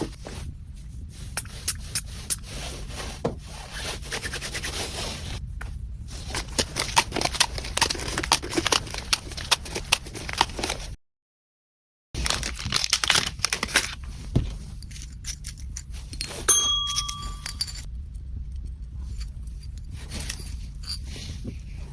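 Packaging being handled and opened: crinkling, tearing and scraping of wrapping with many sharp clicks and taps. It breaks off into a second of total silence about halfway through. A short squeal comes about three-quarters of the way in.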